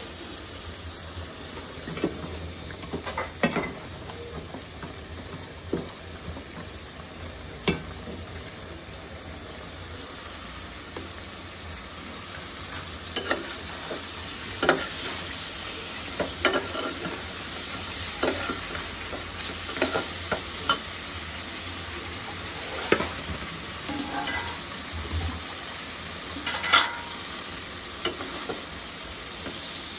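Kakiya fish pieces and onion masala sizzling steadily in an aluminium pot. A steel spoon clicks and scrapes against the pot now and then as the curry is stirred, loudest near the end.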